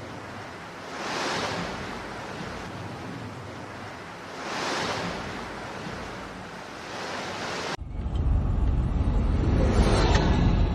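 Blizzard wind rushing in gusts that swell and fade about every three seconds. Near the end the sound cuts to a louder, low, steady rumble of wind buffeting the microphone.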